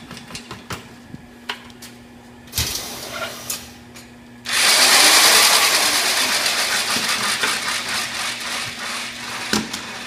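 Hand-held electric mortar mixer switching on suddenly about halfway through, running loud with its paddle churning a bucket of concrete mix, then slowly getting quieter. Before it starts there are a few knocks and clatters.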